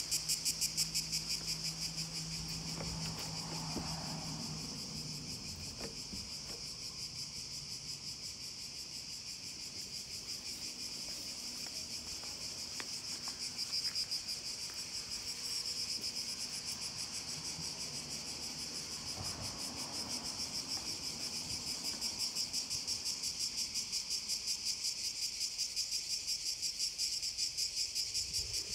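A steady, high-pitched chorus of insects, pulsing rapidly, with a faint low hum in the first few seconds.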